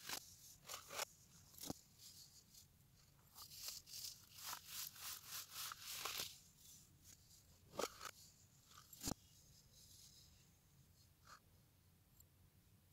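Moulded baking soda blocks crumbled between fingers: dry, gritty crunching and powdery rustling, dense at first, then thinning to a few scattered crackles and fading near the end.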